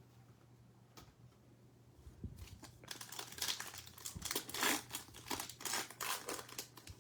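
Trading-card pack wrapper being torn open and crinkled by hand, a dense crackling rustle that starts about two and a half seconds in and dies down near the end.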